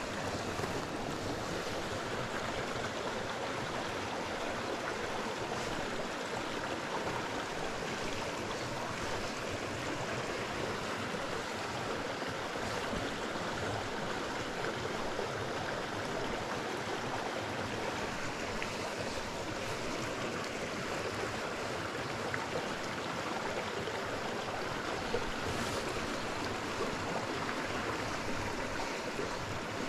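Small creek flowing over rock, a fast run spilling into a pool: a steady, even rush of water.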